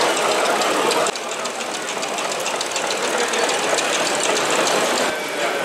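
Small model stationary steam engines running, giving a fast, even mechanical ticking and clatter.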